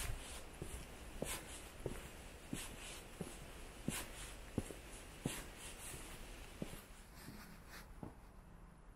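Footsteps of a person walking on a stone-paved path, a step about every two-thirds of a second, fading near the end.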